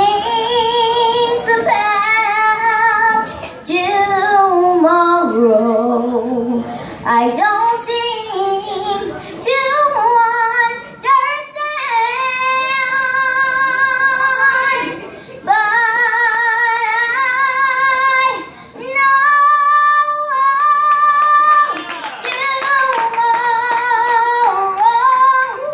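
Young girl singing, with long held notes and vibrato and sliding runs between pitches, in short phrases with brief breaks, backed by a live band.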